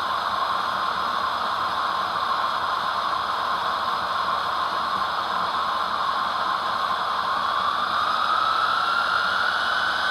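Sound-decoder dynamic brake effect of an HO scale GE ES44DC model, played through its small onboard speaker: a steady hiss of the brake grid blowers. A whine rises in pitch from about two-thirds of the way through.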